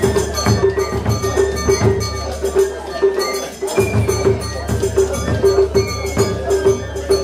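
Japanese festival music with metallic percussion, a cowbell-like clang struck in a quick, steady rhythm.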